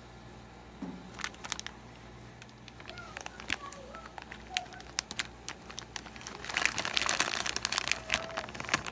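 Plastic snack bag crinkling as it is handled: scattered crackles at first, then a dense spell of crinkling near the end.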